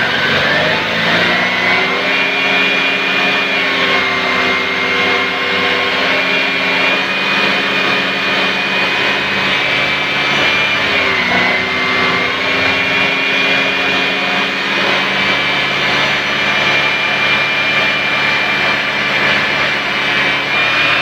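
Electric radiator cooling fan of a Maruti Suzuki Wagon R cutting in and spinning up to a steady whine over the idling engine, with a brief dip in pitch about eleven seconds in. The fan switching on by engine temperature shows that the cooling fan works after the coolant change.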